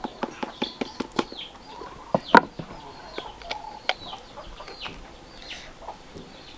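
Fresh yellow chile being split open by hand, giving a string of sharp crisp clicks and crackles, the loudest a little over two seconds in. Small birds chirp with short falling calls throughout.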